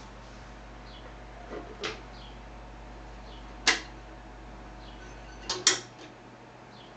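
Sharp clicks and knocks of hands handling a Philips AG1016/22 record player while a record is put on. They come as a pair, then a single loud click, then a loud double click about five and a half seconds in, at which a low steady hum cuts off.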